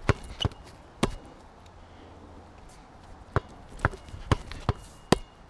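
Basketball bouncing hard on a sport court, each dribble a sharp knock. There are three bounces in the first second, a pause of about two seconds, then five quicker bounces about half a second apart.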